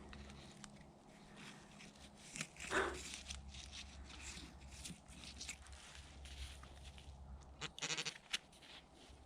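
Handheld metal-detecting pinpointer giving a short, pulsed buzz near the end, amid faint clicks and scrapes of digging in soil; the pinpointer is getting weak, its battery dying. A louder falling tone sounds about three seconds in.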